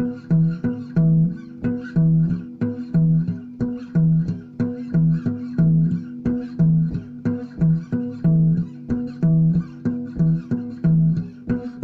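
Instrumental music: plucked string notes over a low bass line, in a steady, repeating pattern of about two notes a second.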